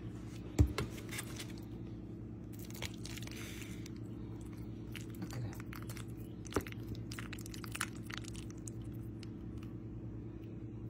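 A serving spoon digging into baked cheese-topped casserole in a glass baking dish: soft crunching and scraping, with a few sharp clicks of the spoon against the glass, the loudest about half a second in. A steady low hum runs underneath.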